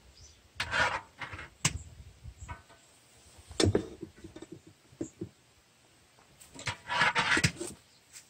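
A long-handled metal mesh strainer knocking and scraping against a cast-iron cauldron while broth splashes and drips as solids are scooped out of it, in several short, separate bursts with a longer splashing stretch near the end.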